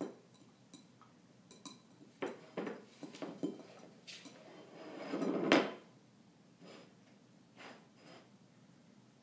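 A dog's food bowl knocked and pushed about on a wooden floor: a string of clanks and knocks, then a scraping slide that swells into the loudest clank about five and a half seconds in, followed by a few softer taps.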